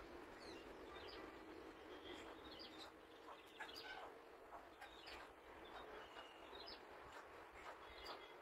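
Near silence, with faint scattered bird chirps in the background.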